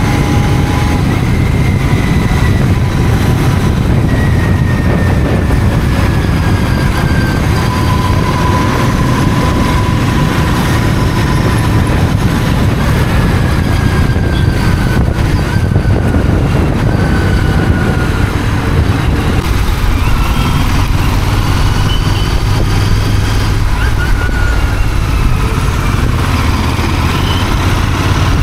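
Motorcycle being ridden on the road: engine and road noise, loud and steady, with a few faint falling whines.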